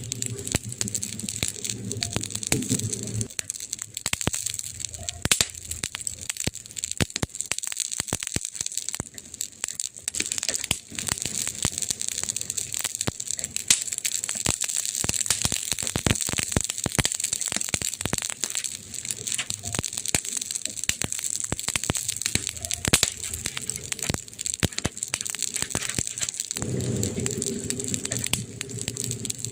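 Campfire crackling and popping: many sharp pops and snaps over a steady high hiss. A low hum sounds for the first three seconds and comes back near the end.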